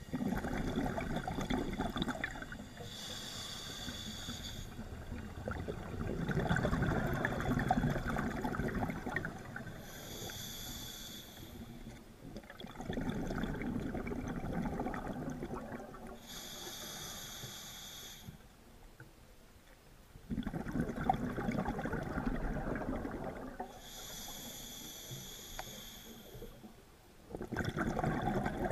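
Scuba diver breathing through a regulator, heard underwater through the camera's waterproof housing. A high hiss on each inhale alternates with a longer crackling rumble of exhaled bubbles, about one breath every six to seven seconds.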